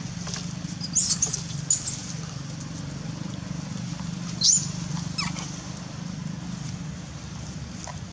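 Several short high-pitched animal squeaks about a second in, then a louder squeak that rises sharply in pitch at about four and a half seconds, over a steady low rumble.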